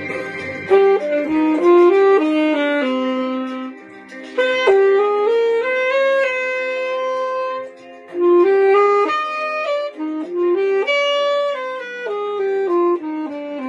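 A solo melody played phrase by phrase on a single instrument, one note at a time, with brief pauses between phrases about four and eight seconds in.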